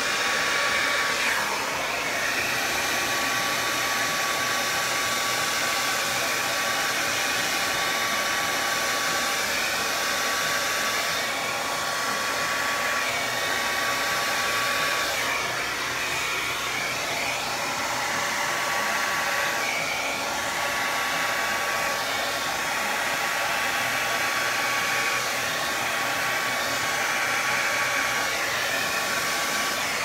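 Handheld hair dryer blowing steadily, pushing wet acrylic paint across a canvas, with a thin steady whine under the rush of air. The hiss shifts in tone as the dryer is swept about over the canvas.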